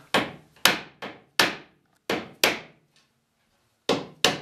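Hammer blows on the wooden arm of a Windsor chair, driving it down onto the spindle tenons in a dry fit: eight sharp strikes, mostly in quick pairs about a third of a second apart.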